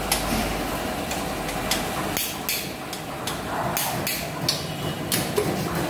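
Sharp metallic clicks from a long torque wrench tightening the main bearing cap bolts on a six-cylinder engine block with the crankshaft installed. The clicks come about nine times at uneven intervals over a steady background hum.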